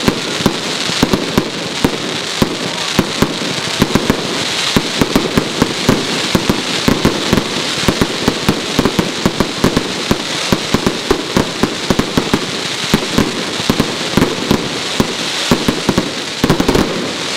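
Fireworks firing and bursting in quick succession: a dense run of sharp pops, several a second, over a steady hiss, with no let-up until it starts to die away near the end.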